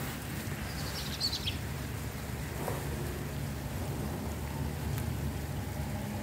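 Steady low outdoor background hum, with a short high bird chirp about a second in.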